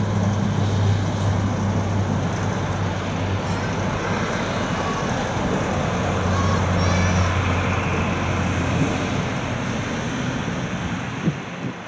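Airbus A340-300's four jet engines running at low taxi power, a steady roar with a constant low hum, easing off over the last couple of seconds.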